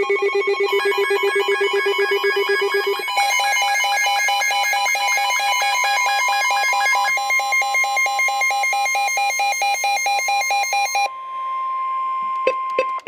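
Emergency alert tones of a broadcast severe thunderstorm warning: rapidly pulsing electronic tones, trilling like a ringing phone, that step to new pitches twice. They then give way to a single steady tone for the last couple of seconds, broken by two sharp clicks near the end.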